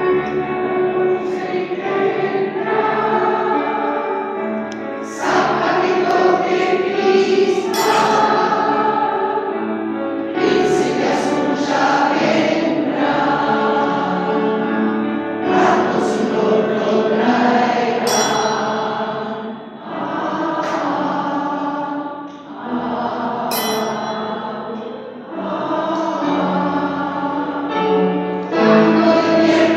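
Mixed amateur choir, mostly women's voices, singing a song in phrases, accompanied on an upright piano.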